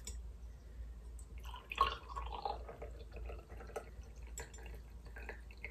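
Mushroom water extract poured in small amounts from a glass measuring jug, trickling and dripping irregularly. A brief, louder splash or knock comes a little under two seconds in.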